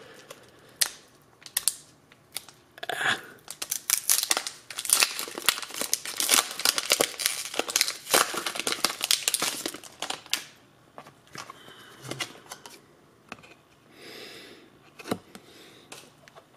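Foil Pokémon booster pack crinkling and crackling as it is torn open and spread in the hands. The crackling is dense for most of the first ten seconds, then gives way to quieter, sparser rustling as the cards are handled.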